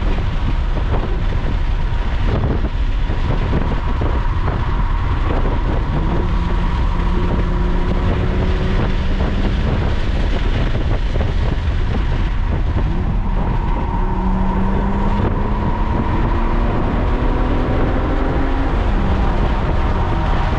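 Lotus sports car's engine and a heavy road and wind rumble heard from inside the cabin at about 80 mph, the engine note climbing slowly as the car accelerates.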